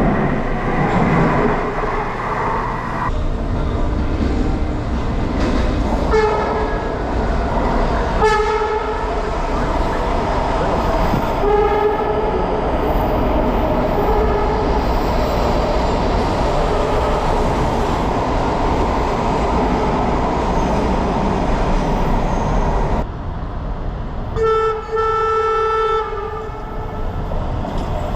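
MARTA Hitachi CQ311 rapid-transit railcar horn sounding several short honks over the steady rumble of the train running on the rails, the last and clearest blast near the end lasting about a second and a half.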